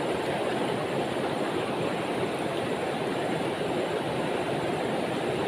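Steady rushing of a fast-flowing river, running high after a flood.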